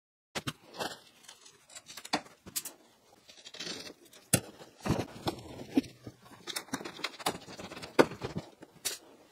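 Rubber locking strip being pulled out of a truck's windshield gasket: irregular rubbery rasping with sharp clicks and snaps, the loudest snaps about four and a half, five and eight seconds in.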